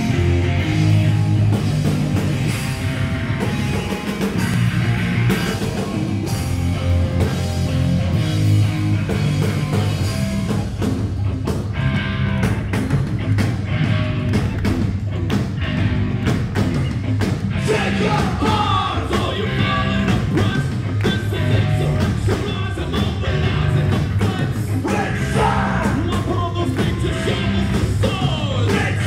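Hard rock band playing live and loud: distorted guitars, bass and drums, with a vocalist singing over it in the second half.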